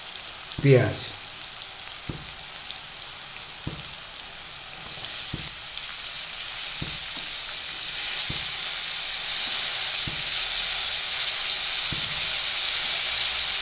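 Cauliflower frying in oil in a kadai, sizzling steadily. About five seconds in, chopped onion goes into the hot oil and the sizzle jumps louder and stays up. Light knocks come every second or two.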